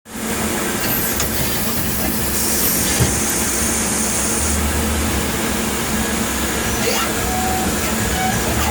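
Tsugami BO205 Swiss-type CNC lathe running while milling slots: steady machine noise with a hiss and low hum. A higher whine comes in for about two seconds a few seconds in, and there is a single sharp click about three seconds in.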